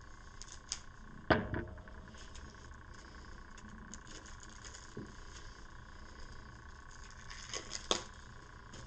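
Board-game cards and cardboard pieces being handled and set down on a table: a few sharp taps and knocks, the loudest about a second and a half in and a pair near the end, with soft rustling between, over a faint steady hum.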